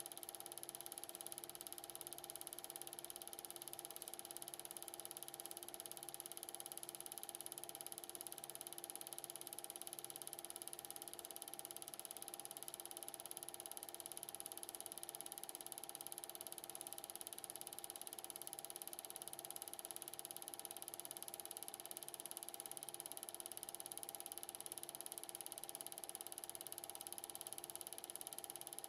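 Steady mechanical whir and hum of an 8mm film projector running, with a faint low pulse repeating about once or twice a second.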